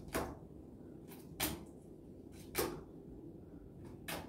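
Playing cards flipped face up onto a tabletop one at a time, four short slaps a little over a second apart.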